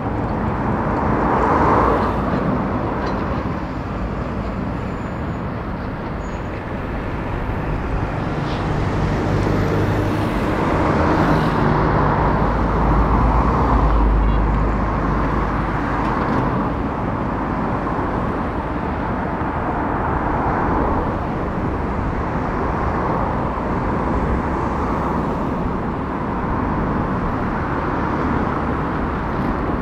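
Street traffic noise with a Tatra T3 tram running in on its tracks. Its low rumble is heaviest as it draws up to the stop around the middle, and it stands there after that.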